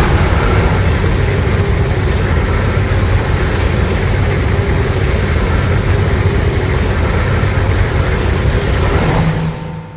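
A Legendary-era Godzilla film sound effect: a long, loud, dense rumbling blast with heavy low end and no clear pitch, holding steady and then fading out about nine seconds in.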